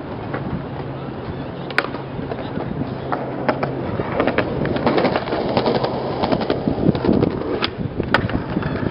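Skateboard wheels rolling over a concrete pavement, growing louder from about four seconds in, with a run of small clacks, then a sharp pop near the end as the skater ollies. There is another sharp click about two seconds in.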